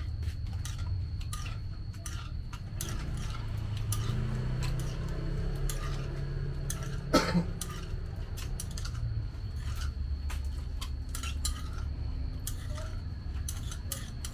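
A spoon scraping and clicking against a large stone mortar as thick peanut sauce is scooped out into a plastic bag, with one sharper knock about halfway through. A steady low rumble runs underneath.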